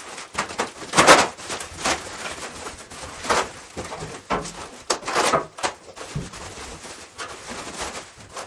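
Plastic and foam packing wrap rustling and crinkling in a string of short bursts as it is pulled off a heavily packed part.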